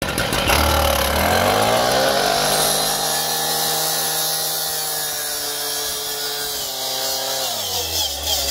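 Stihl two-stroke gas cut-off saw revving up over the first two seconds, then its spinning blade grinding through a steel chain-link fence top rail, the engine pitch sagging slightly under the load. Near the end the engine drops away sharply.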